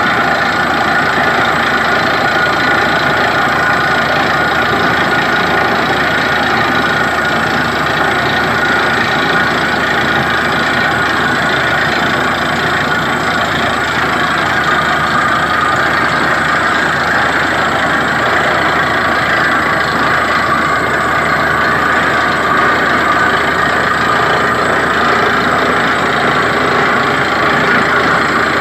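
Borewell drilling rig running steadily, a loud, constant engine-driven machine noise.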